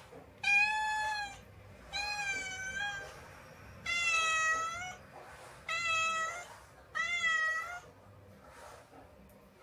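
A domestic cat meowing five times in a row. Each meow is drawn out for about a second and bends in pitch, with short pauses between them.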